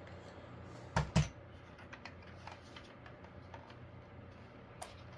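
Handling noise from a plastic smoke alarm and its wiring harness plug: two sharp clicks or knocks about a second in, then a few light scattered clicks.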